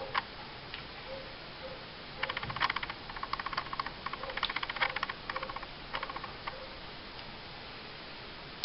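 Rapid light clicking in short bursts of about half a second, several in a row.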